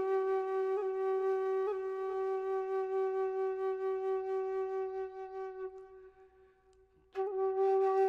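Background music: a flute holding one long, steady note, which fades out about six seconds in; after a brief pause the same note starts again near the end.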